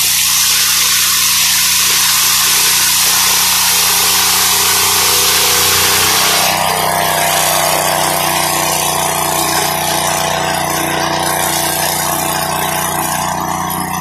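Homemade swing-blade sawmill running, its V-twin engine driving a circular blade through a log at a steady speed. The harsh high cutting noise thins out about halfway through, leaving the engine and a steadier whine, and comes back in full near the end.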